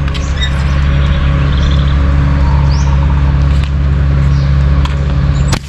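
Engine running at a steady low speed, a constant low hum, with a few short bird chirps above it and a sharp snap near the end.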